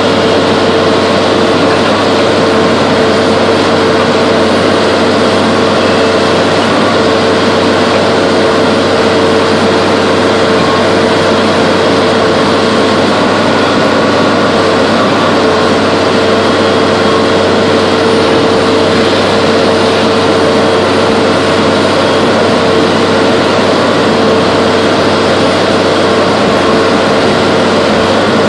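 Log loader's diesel engine running steadily under load, heard from inside the cab, with a steady whine over it that drops out briefly twice.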